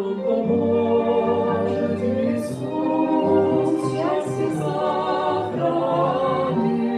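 A song sung as a duet, with voices holding sustained notes over instrumental backing.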